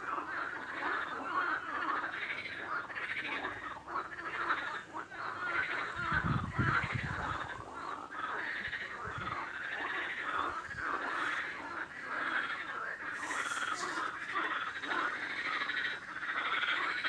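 A chorus of many frogs calling at once, dense and continuous, with a brief low rumble about six seconds in.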